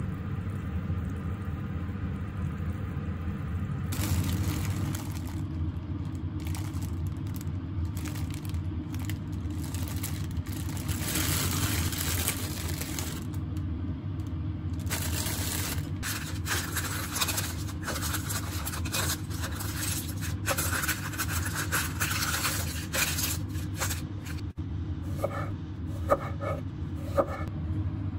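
A plastic bread bag rustling and crinkling in the hands as bread is handled, with light scraping, over a steady low hum. Two sharp taps come near the end.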